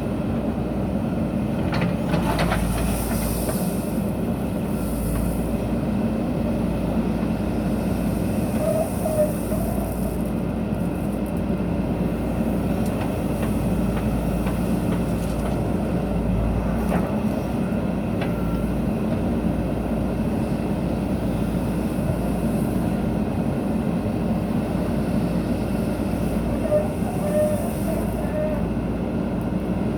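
JCB backhoe loader's diesel engine running steadily, with a few faint clanks.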